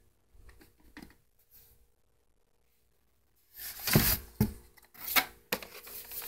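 Cardboard shipping carton and boxed action-figure packaging being handled: a few faint rustles, then from about three and a half seconds in a run of loud scrapes, rustles and knocks as a figure box is pulled out of the carton.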